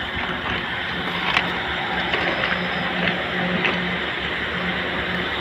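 Steady rumble of road traffic from a nearby highway, with a low hum that rises and falls every half second or so.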